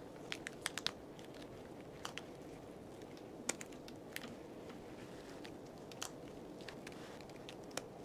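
Scattered faint clicks and crackles from fingers pressing a smartphone's glass back cover down onto its double-sided adhesive tape along the edges: a quick run of four in the first second, then single clicks every second or two, over a steady low hum.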